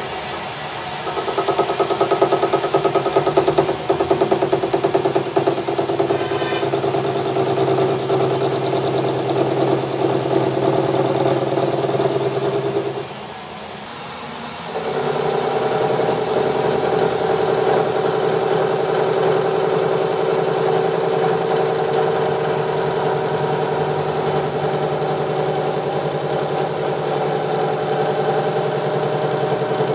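Workshop machine running with a steady hum. It winds down about 13 seconds in and starts up again about two seconds later.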